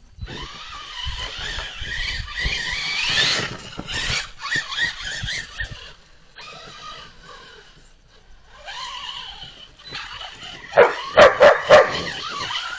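Dogs yipping and whining excitedly, high-pitched calls with a rising glide, then a quick run of about five loud barks near the end.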